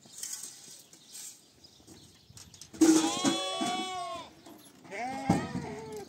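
Livestock bleating: one long bleat about three seconds in, then a shorter one near the end.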